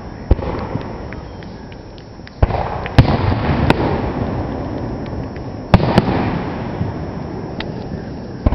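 Aerial fireworks shells bursting in a series of booms and sharp cracks: one near the start, a boom about two and a half seconds in, then cracks around three seconds and again around six seconds. Each is followed by a rumbling echo that dies away.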